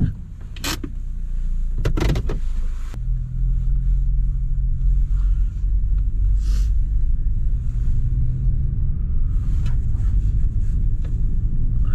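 A car driving with its engine running, a steady low drone, with a few knocks in the first two seconds.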